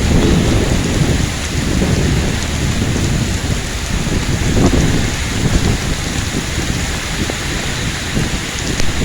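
Heavy rain pouring down steadily, with strong wind bringing low rumbling surges now and then.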